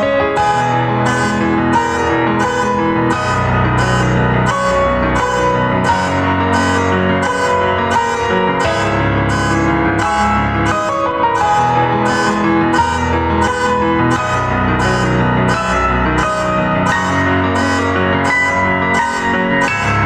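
Piano music played on an electronic keyboard, a flowing melody over sustained chords, with a steady beat whose short high hissing tick comes a little faster than once a second.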